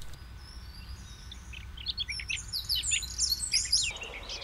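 Small songbirds singing, a quick run of many high chirping notes that starts about a third of the way in and stops short near the end.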